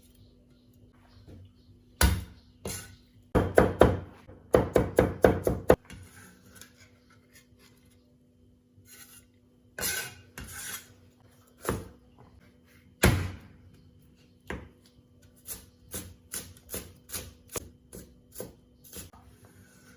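Kitchen knife chopping on a cutting board, cutting up condiments such as coriander, chilli peppers and garlic. There is a single strike about two seconds in, then a quick run of chops. Scattered single cuts follow, and a lighter, even run of chops comes near the end, over a faint steady hum.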